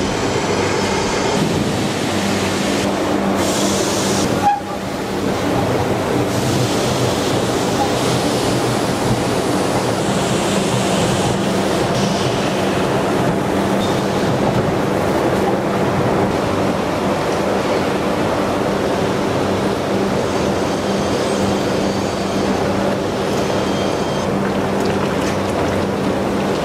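Steady factory machinery noise, a loud continuous mechanical din with a low hum, broken sharply once about four and a half seconds in.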